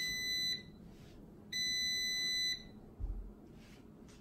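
Cosori air fryer beeping its end-of-cycle alert: a steady high beep ends about half a second in, and a second beep of about a second follows a second later, signalling that the cooking is finished. A soft low thump about three seconds in.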